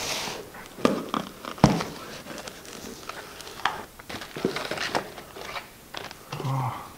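A cardboard shipping box handled on a wooden tabletop: knocks and scrapes as it is set down, two louder thumps early on, then the flaps opened and plastic bags crinkling as they are pulled out.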